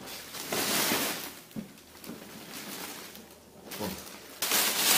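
Plastic protective wrapping rustling and crinkling as a flat-screen TV panel is pulled out of it, with a quieter stretch in the middle and the loudest crinkling near the end.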